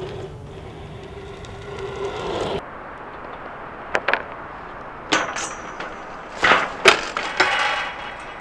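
BMX bike tyres rolling on concrete with a steady hum that cuts off. Then a few sharp knocks and two loud crashing impacts, followed by a scraping rustle, as the rider and bike crash into shrubs.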